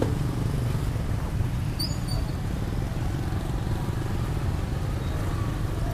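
Steady low rumble of outdoor street ambience, with a couple of brief high chirps about two seconds in.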